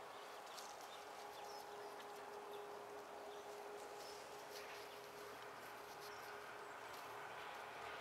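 Faint steady machine hum from a building site, with light scratching and rustling of a gloved hand in loose soil.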